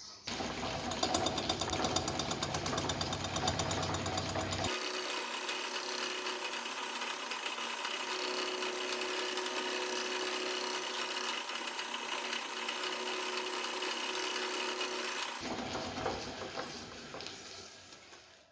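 A metalworking machine or power tool running steadily with a continuous mechanical noise, in several spliced stretches that start and change abruptly.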